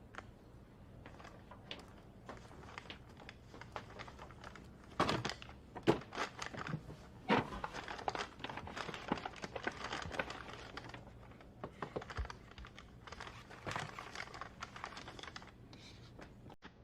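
Crinkling and rustling of a plastic takeout bag and food packaging being handled, with scattered light clicks and taps. It grows busier from about five seconds in.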